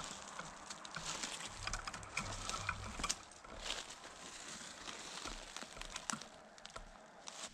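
Footsteps crunching through dry fallen leaves and brush, an irregular run of crackles and snaps that thins out near the end.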